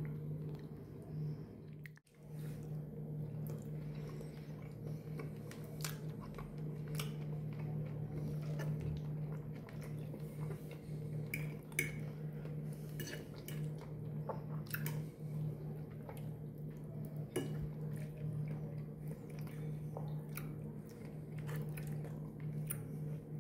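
A metal fork clinking and scraping on a china plate and a man chewing food, in scattered small clicks over a steady low hum.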